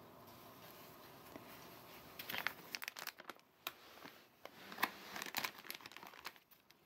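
Empty plastic bag of dried bonito-flake cat treats crinkling as it is handled, in quick irregular crackles starting about two seconds in.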